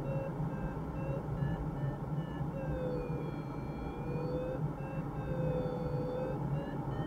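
Inside a glider's cockpit: a steady rush of airflow noise with the variometer's audio tone over it, short evenly spaced beeps at first, then from about two and a half seconds in two longer tones that each dip and rise again in pitch.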